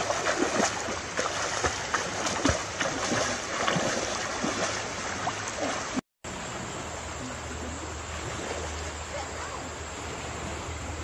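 Legs splashing through knee-deep muddy river water as people wade, with many short sloshes. About six seconds in this gives way to a steady wash of moving river water with a low hum underneath.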